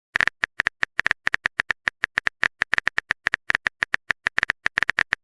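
A rapid, uneven run of short sharp clicks, several a second, like a typing sound effect.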